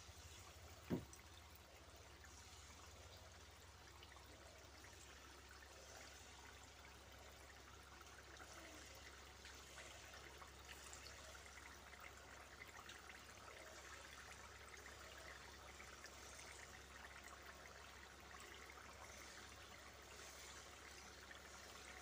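Banana batter fritters deep-frying in a wok of hot oil: a faint, steady sizzle with fine crackling, over a low hum, with a single knock about a second in.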